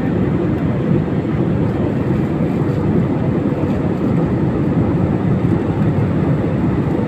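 Steady drone of an airliner's engines and rushing air heard inside the passenger cabin during cruise, a low, even rumble that does not change.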